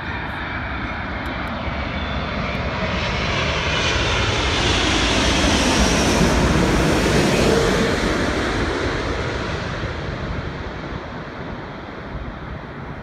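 Jet noise from a Korean Air Airbus A380's four Engine Alliance GP7200 turbofans as the airliner passes low overhead on final approach. It builds to its loudest about six to seven seconds in, with the engine whine gliding down in pitch as it passes, then fades as the aircraft moves away.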